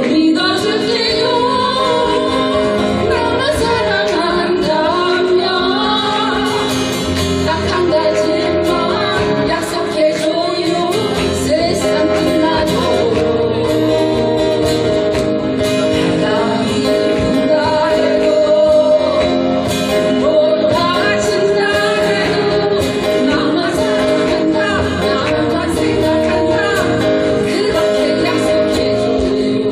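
A song sung live with guitar accompaniment: a vocal melody over sustained strummed chords.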